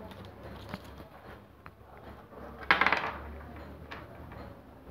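Handling of wire leads and metal terminals: scattered light clicks and clinks, with one louder scratchy burst lasting about half a second, a little under three seconds in.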